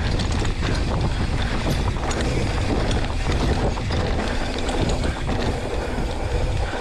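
Wind rushing over the microphone while a Polygon Siskiu T8 mountain bike rolls down a rough dirt track. The low rumble is steady, with many small clicks and rattles from the tyres and bike over bumps.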